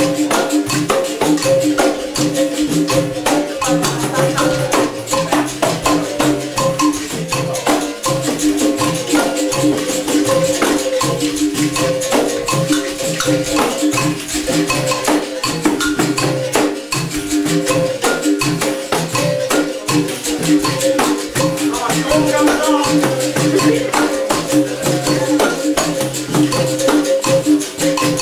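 Capoeira bateria playing a steady rhythm: berimbaus ringing over the rattle of caxixi shakers, with pandeiros and an atabaque hand drum.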